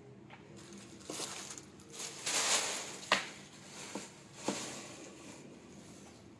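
Clear plastic packaging rustling and crinkling as a plastic-wrapped chair part is handled, loudest about two and a half seconds in. A sharp click follows just after, then two lighter knocks.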